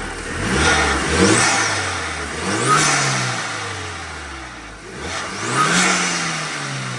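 Volkswagen MK5 GTI's turbocharged 2.0-litre four-cylinder revved three times while stationary, the pitch climbing and falling with each blip, with a faint high turbo whistle around each peak. It has a freshly fitted cold-air intake and aftermarket diverter valve, which is meant to open at once when the throttle moves.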